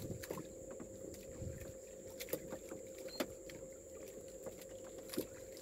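Water lapping faintly against the hull of a small wooden outrigger fishing boat, with a few short sharp knocks and clicks scattered through it and a faint steady hum underneath.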